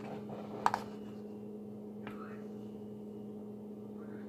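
Steady low electrical hum, with a sharp double click about two-thirds of a second in and a fainter tap about two seconds in from a small plastic slime tub and lid being handled.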